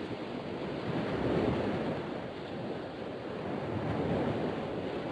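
Ocean surf: a steady rush of waves that swells slightly twice.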